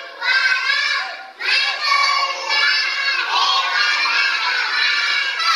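A class of young children chanting loudly in unison, their high voices rising and falling in phrases, with a short break about a second and a half in.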